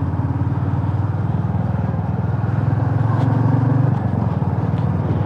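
Motorcycle engine running steadily with fast even firing pulses. It grows a little louder about three seconds in and eases back about a second later.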